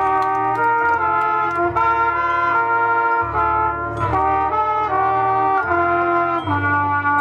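A marching band's brass section playing sustained chords that shift from note to note, over held low bass notes, with scattered light percussion strikes.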